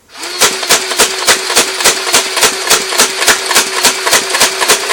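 Battery-powered belt-fed Nerf Vulcan EBF-25 firing on full auto. Its electric motor whirs up and keeps running with a steady hum, while the blaster fires foam darts in a rapid, even stream of sharp clacks, about three and a half to four a second, as the 25-round belt feeds through.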